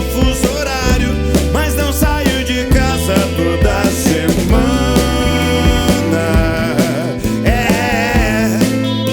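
Rock band playing live, with steady bass, drums and a lead line that bends and wavers in pitch, during a stretch with no lyrics sung.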